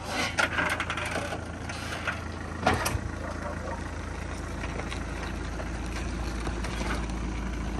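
An engine idling low and steady while a car is loaded onto a flatbed tow truck's tilted platform. There are a few clicks early on and a sharp knock about three seconds in, after which the hum grows stronger.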